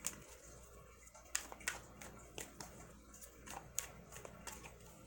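Tarot cards being shuffled by hand, the cards giving soft, irregular clicks and slaps as they are cut from one hand onto the deck. A low steady hum sits underneath.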